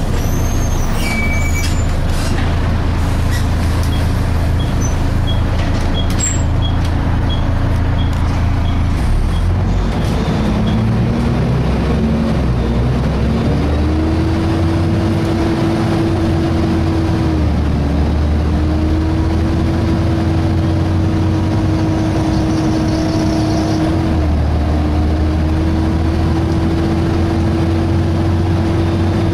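Volvo B7TL bus's six-cylinder diesel engine running, heard on board, with a brief high squeal near the start. About a third of the way in the cooling fan's whine rises in pitch and then holds steady.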